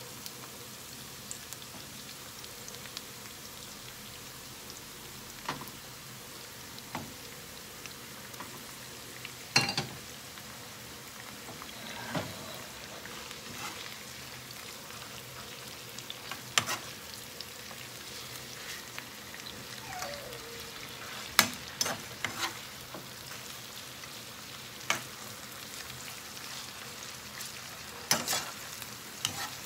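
Pork spare ribs frying in a pan with a steady sizzle, while a utensil stirring them clinks and scrapes against the pan every few seconds.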